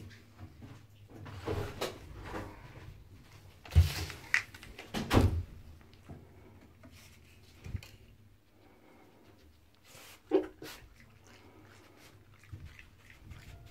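Knocks, thumps and scuffling from a pet red fox moving about in a bathtub, with the loudest thumps about four and five seconds in.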